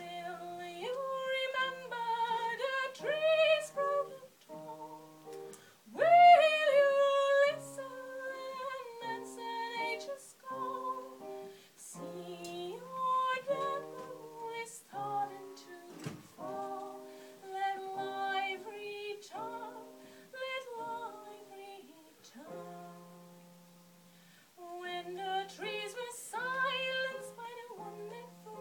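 A woman singing a Celtic song, accompanying herself on a Roland FP-7 digital piano, in sung phrases with short pauses. The loudest moment is a strong held note about six seconds in.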